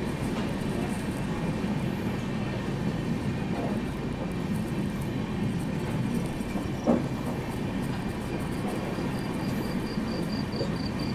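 Rajdhani Express train running, a steady rumble of wheels on the rails. There is a single sharp knock about seven seconds in, and a faint, rapid high-pitched beeping near the end.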